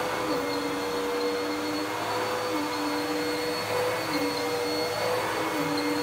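Dirt Devil PowerMax Pet vacuum cleaner running steadily over a carpet, a constant motor whine over airflow noise, with a lower tone that shifts and returns in a repeating pattern about every second and a half.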